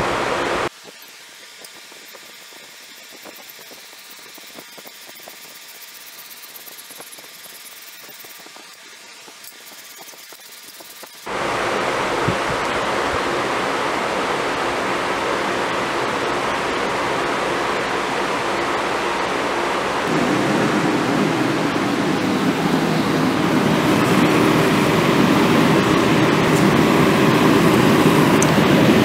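A forge running: after a stretch of faint hiss, a loud steady rushing noise of its fire starts about eleven seconds in and grows louder twice, around twenty seconds and again a few seconds later.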